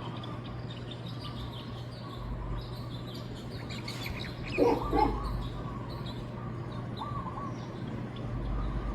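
Birds chirping and calling: many small high chirps, busiest around the middle, with two louder, lower calls close together about halfway through, over a steady low hum.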